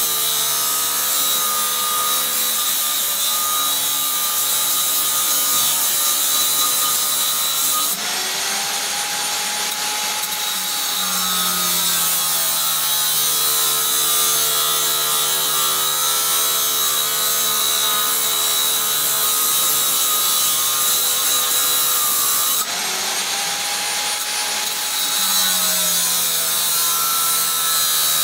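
Angle grinder's cutting disc grinding through steel plate: a continuous loud, harsh grinding. About eight seconds in and again about twenty-three seconds in, the cut briefly lightens and the motor's whine rises and then falls before the disc bears down again.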